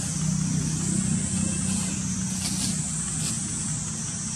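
A steady low motor hum with a steady high hiss above it, and two brief high chirps a little past halfway.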